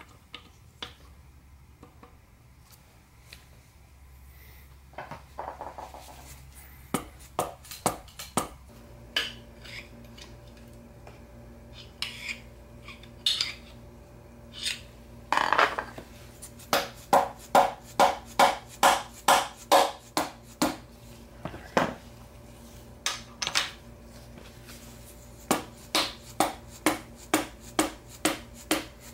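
Metal hand tools clinking and tapping against a Subaru EA82 engine block as a piston is fitted. Scattered clinks come first, then runs of sharp, evenly spaced taps, about two or three a second.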